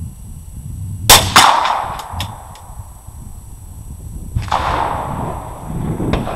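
.22 rimfire rifle shots: two sharp cracks close together about a second in, then another about four and a half seconds in, each followed by a ringing echo, with a few faint clicks between.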